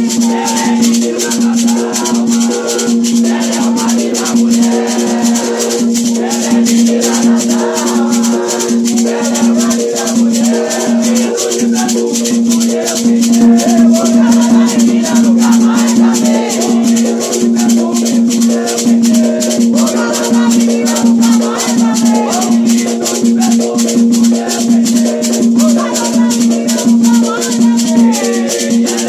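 Voices singing an Afro-Brazilian ponto cantado over fast, steady rhythmic percussion with a rattling shaker, and a steady low drone underneath.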